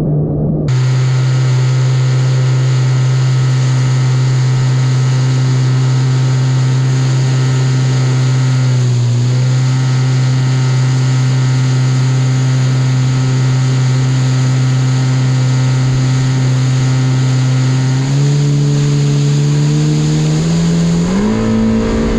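Yamaha VXR 1.8 WaveRunner's four-stroke engine and jet pump running at a steady cruising speed, one held engine note with a high whine and rushing water beneath. Near the end the pitch steps up twice as the throttle is opened further.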